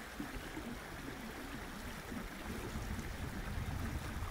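Steady flowing water of a stream, with a low rumble growing in the second half.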